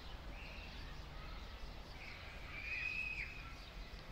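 Faint outdoor background noise with a thin, high-pitched call: a brief one near the start and a longer one, about a second long, from roughly two to three seconds in.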